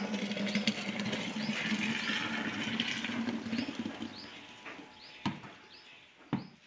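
Fresh milk poured from a steel pail into a plastic pot, a steady splashing pour that fades as the stream thins. Two sharp knocks near the end.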